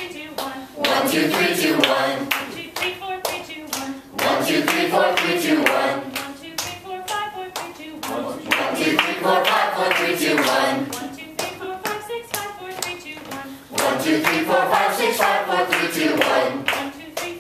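A mixed group of voices singing vocal warm-up phrases together, each phrase lasting a few seconds with short breaks between, over hand claps keeping a steady beat.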